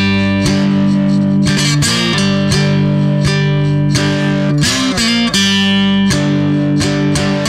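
Loud guitar music, with plucked chords changing every second or so.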